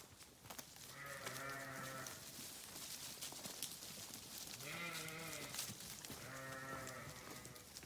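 Sheep bleating: three separate bleats, each about a second long, the first about a second in, the next two close together past the middle.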